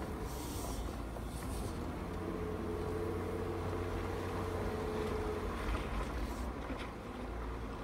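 Vehicle engine running at low speed as it crawls down a rough trail, heard from inside the cab as a steady low rumble, with a faint steady whine for a few seconds in the middle.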